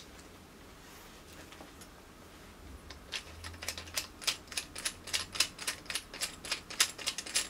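A quick, irregular run of small metal clicks and taps, about four a second, beginning around three seconds in, as a tripod leg's foot is worked into the leg clamp of a WT600 tripod dolly.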